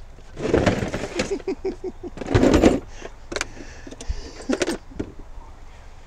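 Tools and gear being shifted and knocked about in a vehicle's cargo area: two stretches of clattering and scraping, then a few separate sharp knocks.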